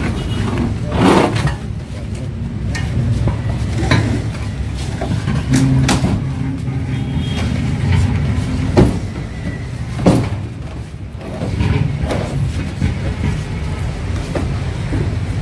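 Heavy metal press cages for a palm oil screw press being shifted and set down, with several knocks and clunks, the loudest about nine and ten seconds in, over a steady low engine rumble.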